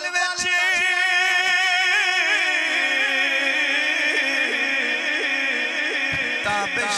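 A man's voice singing one long drawn-out note of devotional poetry through a microphone, first wavering up and down, then settling onto a steadier, lower held note about halfway through.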